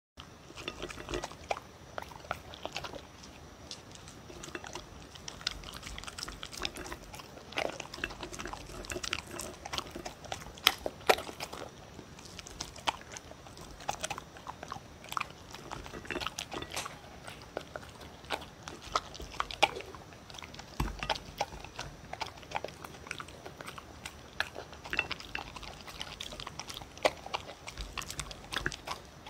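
A dog eating close to a microphone, chewing dry kibble with sweet potato and red bell pepper from a plate: a continuous run of irregular crunches and sharp clicks.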